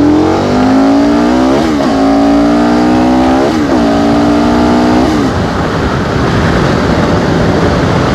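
KTM 1290 Super Adventure's V-twin engine accelerating hard through the gears: the pitch rises, drops at an upshift, rises again, drops at a second upshift and climbs once more. About five seconds in the throttle closes and the engine note fades under steady wind and road noise.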